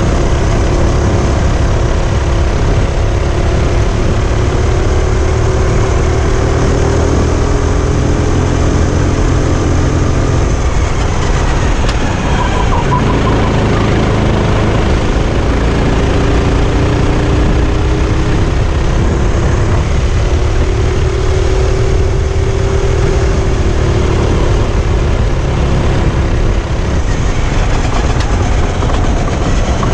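Racing kart engine running hard under load, its pitch rising and falling as the kart accelerates and slows around the track.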